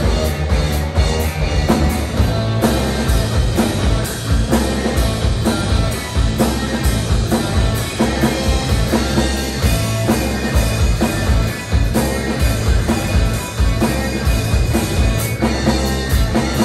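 Live rock band playing loudly: distorted electric guitar, electric bass and a drum kit keeping a steady beat.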